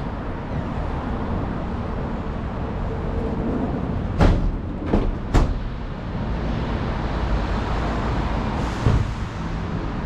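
Road traffic rumbling steadily in a city street, with three sharp knocks in quick succession about four seconds in and another a few seconds later.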